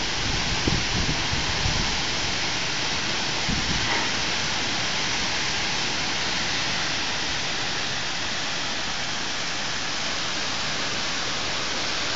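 Steady rain falling, an even hiss with a few low thuds in the first seconds.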